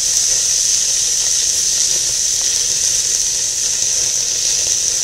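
Marinated elk steaks sizzling steadily on a very hot grill grate.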